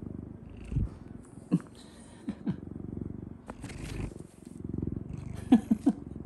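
Munchkin cat purring right at the microphone, the low rumble swelling and fading with its breathing. A few short, sharp sounds cut through it, the loudest a quick run of three near the end.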